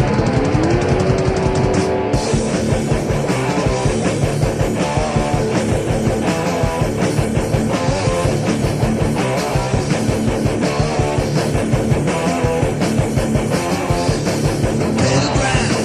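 Heavy metal band playing an instrumental passage: distorted electric guitars over a fast, steady drum beat. A held note slides down and back up near the start.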